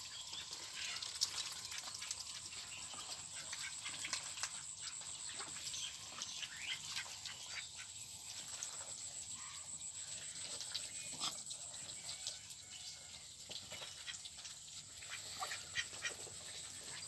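A flock of domestic ducks quacking and calling, many short overlapping calls, over a faint steady high hiss.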